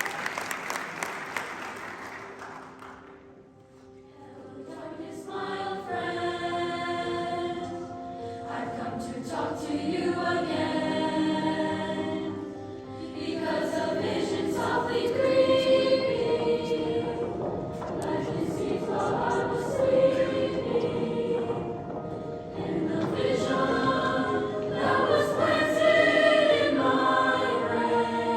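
Applause fading out, then a junior-high girls' choir singing together in phrases, with short breaths between them.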